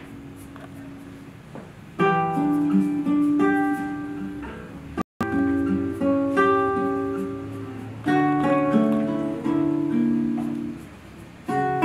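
Classical nylon-string guitar played slowly. Chords and single notes are plucked and left to ring and fade, with new phrases starting at about two and eight seconds. The sound cuts out for an instant about five seconds in.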